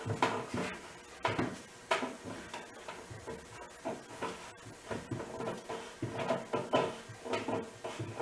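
A wooden dowel being worked into a drilled hole in a cedar slab: irregular hollow wooden knocks and clunks, with rubbing in between, as it is pushed and twisted in.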